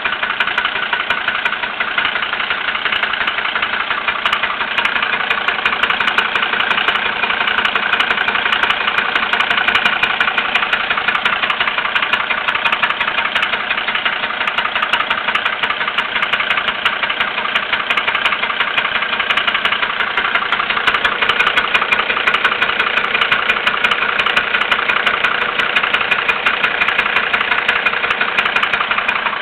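Mercedes-Benz MB100 van engine idling steadily with a fast, even knocking running through it: the strange engine noise its owner is trying to identify.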